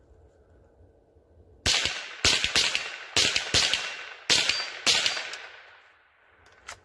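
Rossi RS22 semi-automatic .22 LR rifle firing about seven shots at an uneven pace, roughly one every half second to second, each with a short fading echo. The string stops short of the ten-round magazine: the rifle has failed to feed.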